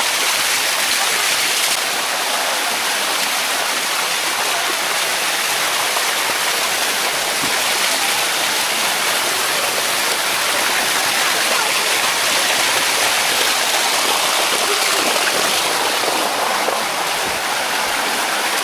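Steady rush of water cascading over the mineral-crusted limestone steps of a waterfall, close by.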